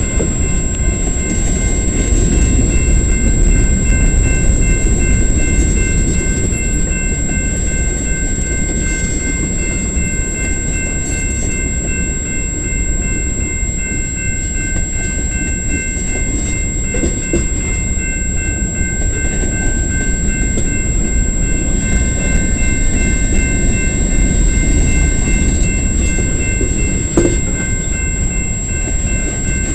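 Slow-moving freight train of tank cars and covered hoppers rolling past, with a steady low rumble of steel wheels on the rails. A single short clank sounds near the end.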